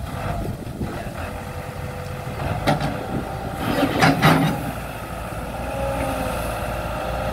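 Caterpillar excavator's diesel engine running steadily as the boom and bucket work, with a few sharp knocks about three and four seconds in.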